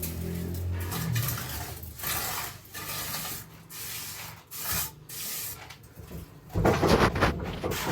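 Repeated rubbing or scraping strokes, about one a second, with a louder, longer scrape near the end.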